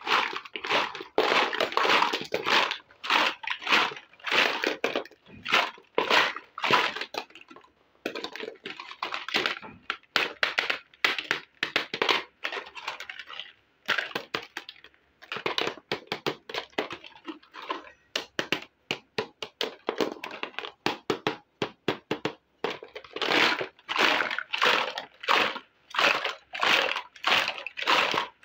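Plastic packaging and small plastic pieces of a miniature toy kitchen set being handled while unboxing: dense crackling rustles and small clicks in bursts of a second or two, with short pauses between.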